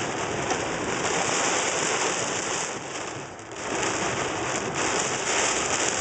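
Heavy thunderstorm rain pouring down in a steady hiss, easing briefly a little past halfway before coming back.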